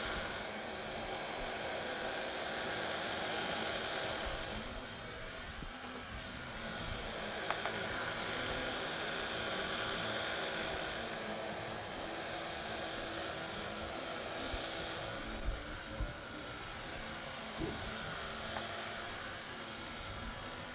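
Countertop blender running on high, puréeing cooked corn kernels in a little liquid, with no lid on the jar. Its whir swells and eases every few seconds as the contents churn.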